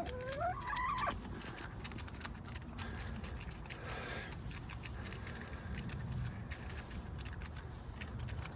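A chicken gives a brief squealing call in the first second, its pitch bending up and down. After that come faint scattered clicks over a low steady background.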